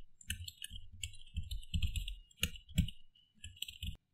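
Computer keyboard keys clicking in quick runs of typing, broken by short pauses.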